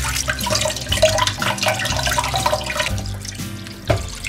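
Kitchen tap running into a steel pot in a stainless steel sink as a brined salt beef is rinsed by hand to wash off excess salt, with background music.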